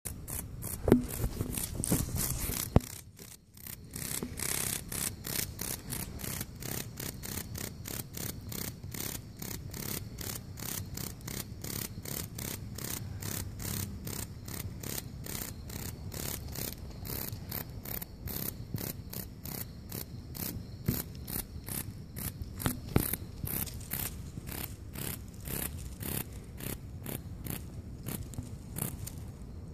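Insect sound: rasping pulses repeating evenly about three times a second, with a short break a few seconds in.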